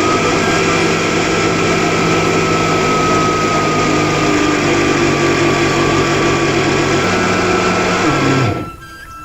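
Loud, steady whir of a small high-speed electric motor that starts and stops abruptly.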